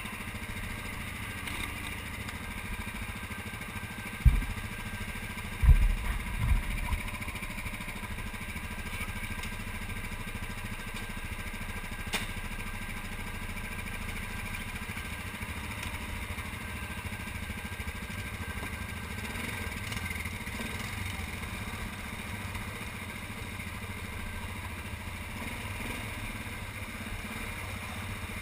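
ATV engine running steadily at low throttle while crawling over rocks, with a few heavy low thumps about four seconds and six seconds in.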